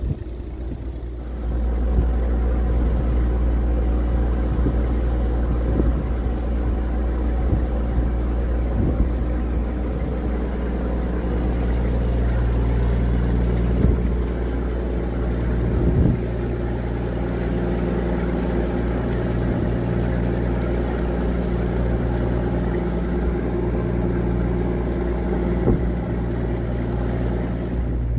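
Large river passenger ferry under way, its diesel engines running with a steady deep hum and a rush of air and water. It gets louder about a second and a half in, with a few brief knocks here and there.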